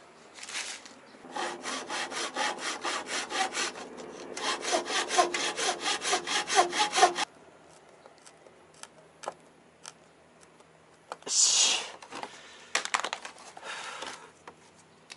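Hand saw cutting wood with quick, even back-and-forth strokes, about four a second, in two runs with a short pause around four seconds in, stopping suddenly about seven seconds in. A brief scrape and a few light clicks follow near the end.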